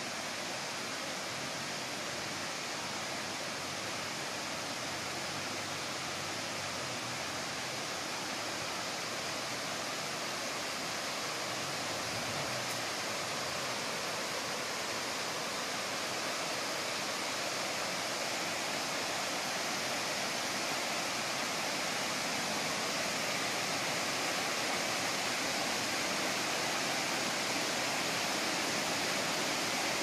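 Water of a shallow forest stream rushing over rocks in small cascades, a steady hiss that grows slowly louder.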